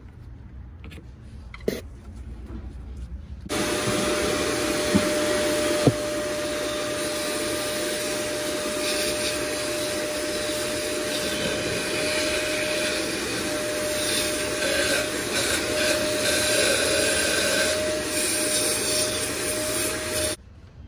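Shop vacuum switched on about three seconds in and running steadily with a constant motor whine, its hose in an intake port to suck out the scraped-off carbon, then cut off abruptly just before the end.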